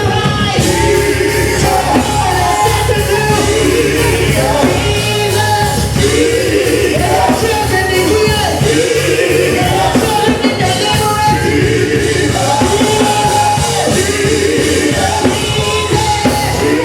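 Live gospel worship music: a band playing loudly under a singer's voice with held, bending notes.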